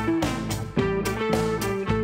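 Instrumental background music with a steady beat and held melody notes.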